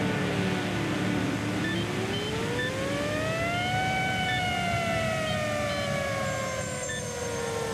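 A single siren-like whine that glides down, rises to a peak about four seconds in, then slowly falls again.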